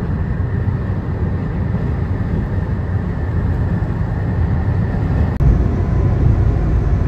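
Steady low rumble of a moving vehicle, with a faint steady whine over it. It drops out for an instant about five seconds in, then runs on a little louder.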